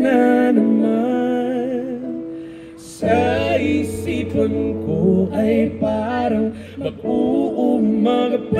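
A woman and a man singing a song live through microphones over a Roland E-09 electronic keyboard, amplified through the stage sound system. The music dips briefly about three seconds in before the singing comes back in.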